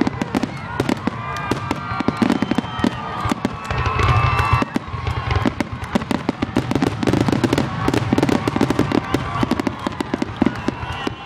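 Fireworks going off: a dense, continuous crackle of many rapid pops and bangs.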